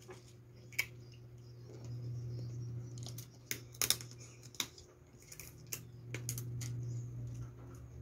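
Close-up eating sounds from a seafood boil: scattered sharp clicks, smacks and sucking as shellfish shells are picked apart and the meat and sauce are sucked from them, busiest in the middle, over a steady low hum.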